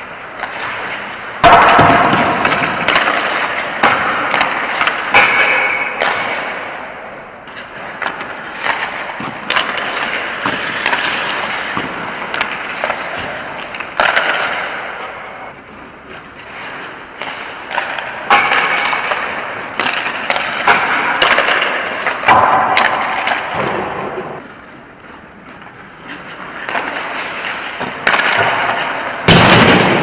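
Ice hockey players shooting pucks in quick succession: sharp cracks of stick blades striking pucks and pucks hitting the net and boards, with skates scraping the ice between shots, echoing in an empty arena.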